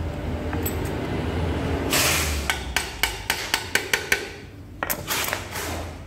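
A quick series of hammer taps on a motorcycle engine's crankcase while the case halves are being split: about eight sharp knocks at roughly four a second, then a few more near the end.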